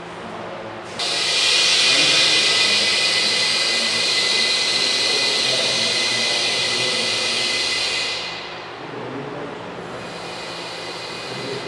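Loud, high hiss of compressed air from the pneumatic debris cannon. It starts suddenly about a second in, runs about seven seconds and tails off, and a fainter hiss returns near the end.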